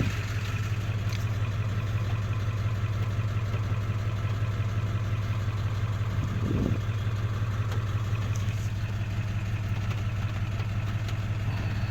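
1999 Ford Power Stroke 7.3-litre V8 turbo diesel idling with a rough, loping idle, the problem behind its service-engine-soon light that a new ICP sensor and fuel filter have not cured.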